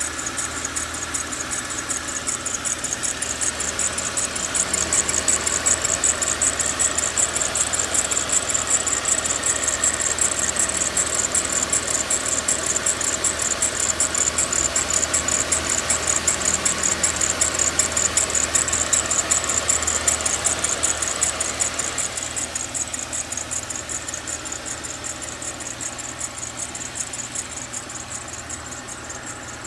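Mercedes-Benz ML 350's V6 idling cold with a fast, continuous high-pitched chirping from the accessory belt drive, which the owner suspects is the belt tensioner or belt. The chirping and the overall level ease off over the last several seconds.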